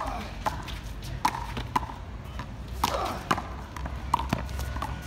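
A small rubber handball being struck by hand and rebounding off the concrete walls and floor in a rally: a quick, irregular series of sharp slaps and smacks, about nine in five seconds.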